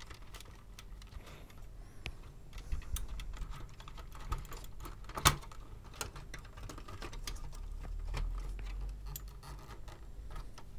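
Hand handling of a Pioneer CT-P720WR cassette deck mechanism as it is worked loose and lifted out of the chassis: scattered light plastic and metal clicks and knocks, with one sharper click about five seconds in.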